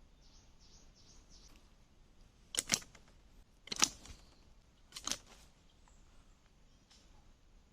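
Three short, sharp knocks about a second apart, the first and last of them doubled, over a faint outdoor background.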